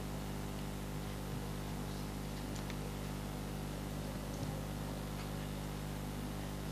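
Quiet room tone: a steady low hum with hiss, with a few faint ticks and rustles of pencils and paper.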